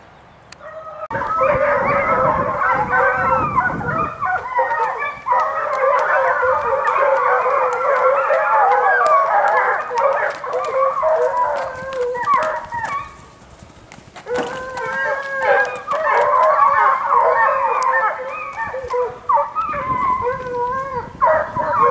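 A pack of foxhounds baying together in full cry, many overlapping voices giving tongue as they run the quarry's line. The cry breaks off briefly a little past halfway, then resumes.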